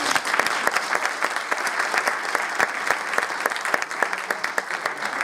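Audience applauding, many hands clapping at once in a steady, dense stream of claps.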